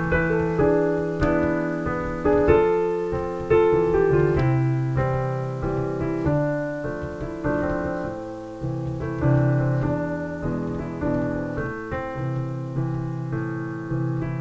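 Piano music: a steady run of notes, each struck and fading, with a bass line underneath.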